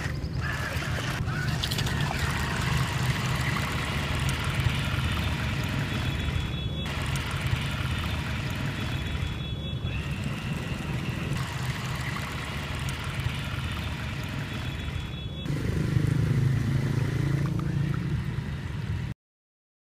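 Small electric motor and propeller of a homemade foam RC boat running steadily on the water, the sound dropping out briefly three times. Near the end it grows louder, its low pitch dipping and rising, then cuts off suddenly.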